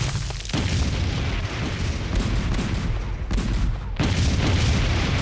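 Heavy explosions from a bombardment booming over a battlefield in a deep, continuous rumble. Fresh blasts hit about half a second in and again about four seconds in.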